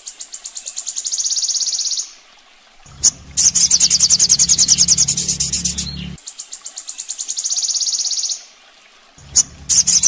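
Olive-backed sunbird (kolibri sogon) singing on a master recording: long, fast, high-pitched trills of rapid even notes, broken by two short pauses, with a sharp chip before each new trill.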